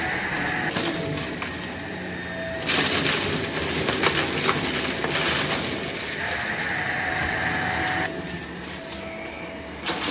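Shark upright vacuum cleaner running over a rug as it sucks up dried flower petals and coins. The motor gives a steady whine. From about three seconds in until about seven seconds the sound gets louder, with debris rattling and coins clicking through the floor head.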